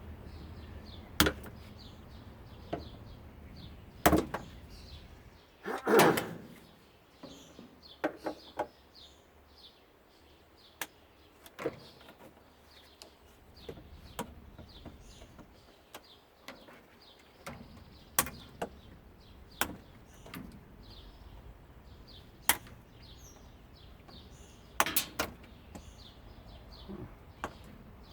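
Scattered sharp clicks and knocks, a few of them louder, from hand tools and parts being handled while a washing machine is stripped for scrap, with cable tie-downs being cut out.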